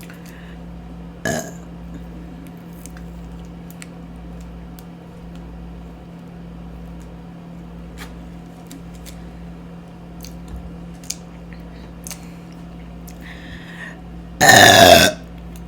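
A woman's single loud, long burp near the end, lasting under a second.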